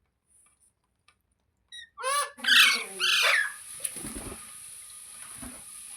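A pet parrot squawking. After a near-silent start with a few faint chirps, it gives about three loud, harsh calls about two seconds in.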